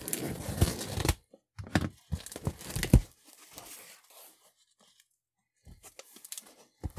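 A cardboard shipping box being opened by hand, with a loose paper sheet lifted off and the flaps pulled open. The paper and cardboard noise comes in bursts over the first three seconds, then dies down to light rustling near the end.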